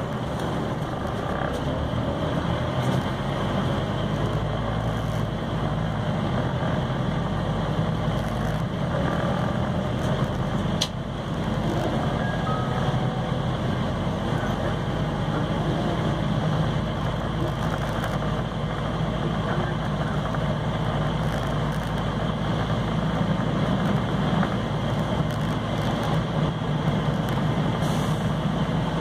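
Interior noise of a Scania CN270UB OmniCity city bus under way: the diesel engine's steady drone mixed with road and body noise, with one sharp click about eleven seconds in.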